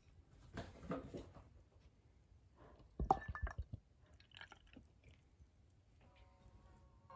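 Thick amber liquid pouring and dripping into a glass container, with faint wet drips and squishes and a sharper knock about three seconds in.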